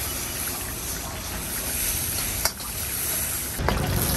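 Gas wok burner running with flames flaring from the wok, a steady rushing noise. A single sharp tap comes about two and a half seconds in, and the noise grows louder near the end as liquid goes into the hot wok.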